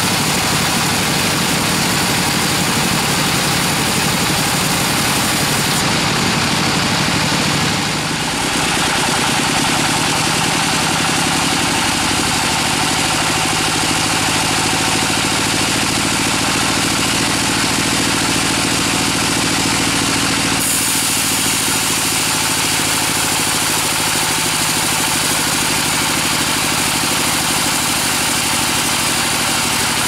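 Large band sawmill running, a continuous machine drone with the saw blade's steady hiss. The sound shifts slightly about eight seconds in and again around twenty seconds in.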